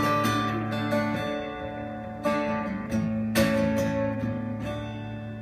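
Acoustic guitar being strummed, with chords ringing between strokes that come every second or so.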